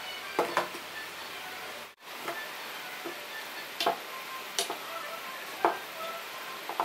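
Small glass spice jars being set down one by one in a lined kitchen drawer: about five light knocks and clinks, spread out, as jars touch the mat and each other.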